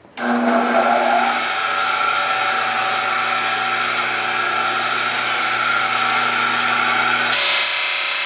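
A 1-horsepower Delta Milwaukee disc sander's electric motor switched on, starting suddenly and spinning up within about a second, then running steadily with an even motor hum and whirr of the disc. Near the end the running sound turns brighter and hissier.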